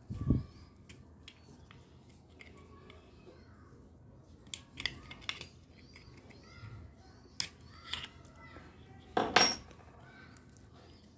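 Plastic case of a digital pH meter handled and pried apart by hand to free its circuit board: scattered small clicks and scrapes of plastic, a dull knock at the very start, and the loudest scrape about nine seconds in.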